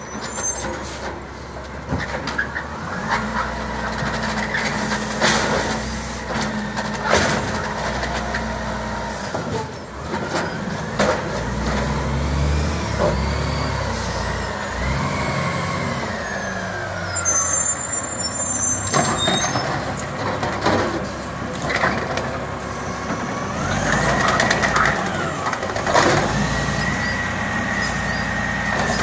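Automated side-loader garbage truck collecting curbside carts: the diesel engine runs under load while the hydraulic lift arm whines up and down twice, with repeated clanks and knocks of carts and a brief hiss of the air brakes.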